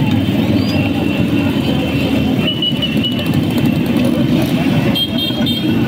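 Several small motorcycle engines running as the bikes ride slowly past in a group, a steady, continuous engine noise.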